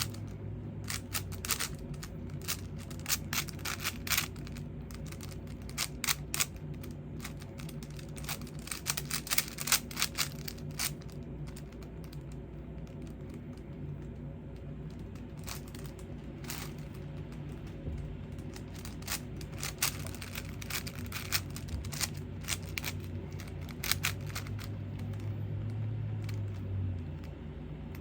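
Plastic 5x5 Rubik's cube being turned quickly during a speedsolve: layers clicking and clacking in irregular flurries, over a steady low hum.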